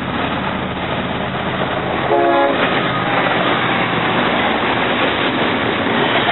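Freight train passing close by, a steady loud rumble of wheels on rail, with a short blast of the locomotive's air horn about two seconds in.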